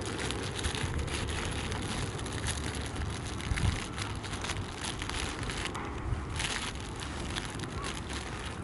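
Sea waves washing on a shingle beach, the pebbles crackling and rattling as the water drags them, over a low wind rumble on the microphone. A louder low thump comes about three and a half seconds in.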